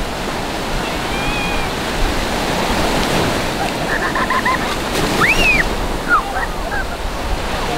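Ocean surf breaking and washing up a sandy shore, a steady rushing noise, with a few brief high-pitched cries over it about halfway through.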